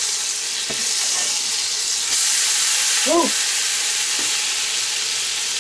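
Floured potato cakes frying in shallow hot oil in a skillet, a steady sizzle. A few faint clicks come through, and there is a short vocal sound about three seconds in.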